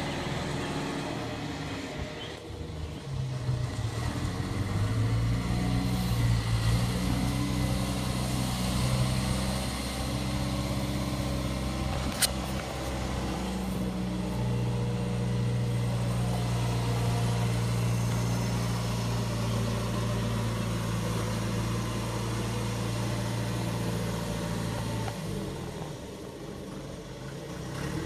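Diesel engines of a backhoe and dump truck running steadily, growing louder a few seconds in and easing off near the end. A single sharp click about halfway through.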